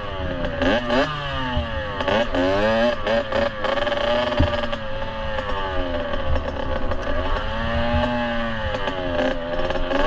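Kawasaki KX65's small single-cylinder two-stroke engine, heard from on the bike while riding. Its pitch rises and falls again and again as the throttle opens and closes, with clattering knocks from the bike over rough ground, a sharp one about four and a half seconds in.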